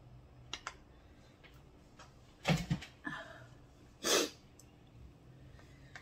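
Close-up eating sounds: a wooden spoon stirring and knocking in a bowl of spicy ramen soup, with a few light clicks and two short, loud mouth noises, about halfway through and again about a second later.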